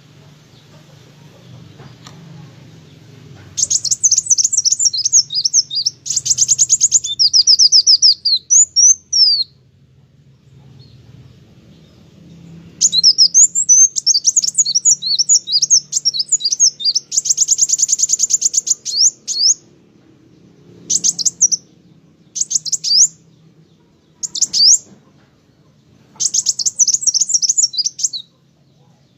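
Kolibri wulung sunbird singing: bouts of rapid, high-pitched chirping trills broken by short pauses, starting a few seconds in, with several brief phrases near the end. A faint low hum sits underneath.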